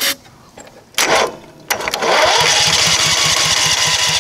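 Generator's gasoline engine turned over by its electric starter. A steady, rapid cranking starts about two seconds in, after a couple of short knocks. The engine is being cranked on a squirt of gas put into the carburetor, because the fuel isn't coming up on its own.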